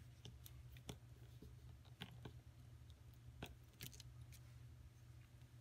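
Near silence: a few faint, scattered clicks and taps from a clear acrylic stamp block being pressed onto card and lifted off, over a steady low room hum.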